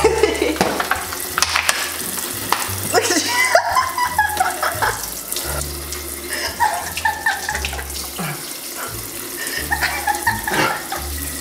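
Kitchen faucet running steadily into a stainless steel sink, with a man's short voice sounds now and then as his mouth burns from a very hot chip.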